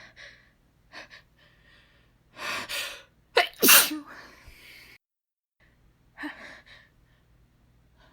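A woman's natural, unstifled sneeze: a few short, hitching in-breaths build to one loud sneeze about three and a half seconds in. After a brief silence, the catching breaths start again about six seconds in.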